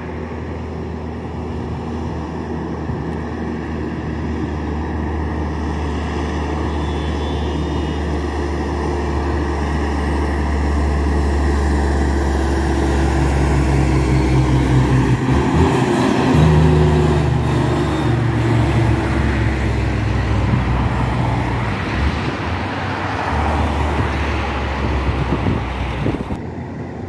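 Loaded tri-axle dump truck's diesel engine approaching and passing along the highway, growing louder to a peak about halfway through, with other cars going by.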